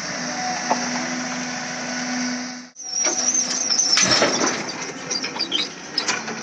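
Komatsu PC200 hydraulic excavator at work loading a tipper: engine running steadily, then after a break a high warbling squeal and a rush of soil dropping from the bucket into the tipper's steel body, followed by a few sharp knocks.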